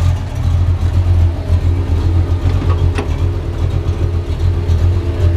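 Car engine idling steadily with a deep even hum. A single short click sounds about three seconds in.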